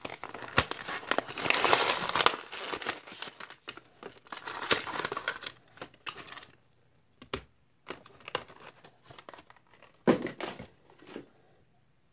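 Plastic blister packaging of a Johnny Lightning toy car being crinkled and torn open by hand, in long crackling stretches. Later there are scattered clicks and short rustles as the car is worked free.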